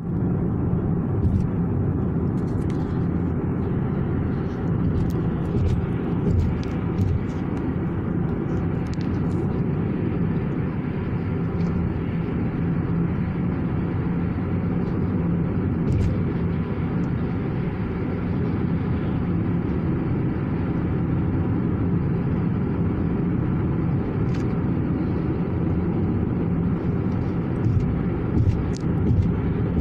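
Steady low road and engine noise heard inside a car's cabin while it drives along a highway, with a few faint clicks near the start and near the end.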